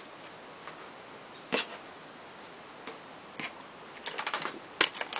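Hands handling and smoothing a fabric dog t-shirt on a cutting mat: a few short rustles and taps, one about a second and a half in and a cluster near the end.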